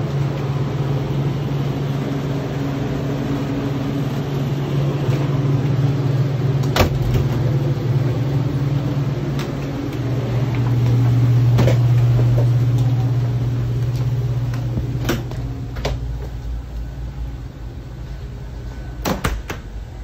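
Walk-in freezer's refrigeration fans running with a steady low hum that swells around the middle and falls away after the heavy freezer door is passed through. A few sharp clicks and knocks, from the door hardware and handling, come about a third of the way in, at about three-quarters and twice near the end.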